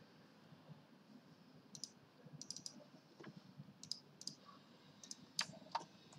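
Faint clicks of a computer mouse, about eight short clicks, some in quick pairs, starting about two seconds in.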